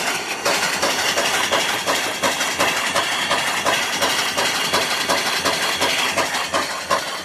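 Twin-cylinder reversing marine steam engine, 3-inch bore and 3-inch stroke, running steadily on steam: a quick, even rhythm of exhaust beats over a constant steam hiss.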